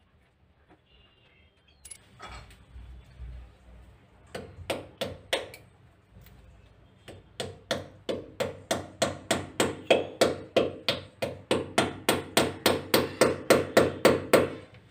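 A pipe wrench used as a hammer, striking at a drilled hole in a wall. A few scattered knocks come first, then a steady run of about three sharp taps a second that grows louder toward the end.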